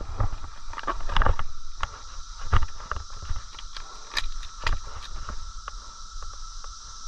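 Irregular footsteps and rustling with scattered sharp clicks and knocks, over a low rumble and a steady high hiss.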